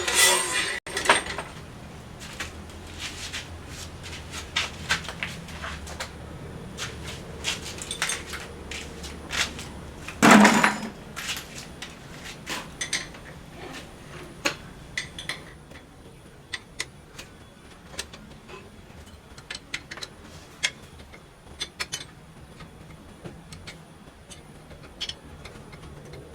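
Metal tools and parts clinking and clanking as a power hammer is dismantled, scattered knocks throughout with one louder, heavier clank about ten seconds in.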